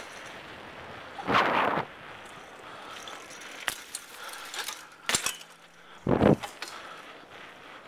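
Bicycle being ridden over pavement: a steady rolling noise with a few sharp clicks and rattles, and two louder rough noises, one about a second and a half in and another near six seconds in.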